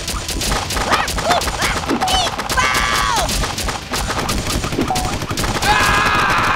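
A rapid barrage of cartoon gunfire-style shooting sound effects, many shots a second, for foam darts being fired in a volley. Cartoon voices cry out over it about two and a half seconds in and again near the end.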